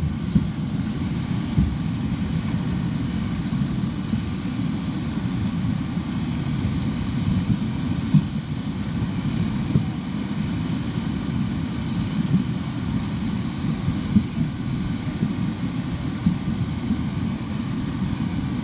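Fast river current rushing and churning around a wooden obstacle in the stream, a steady noise, with wind buffeting the microphone low down.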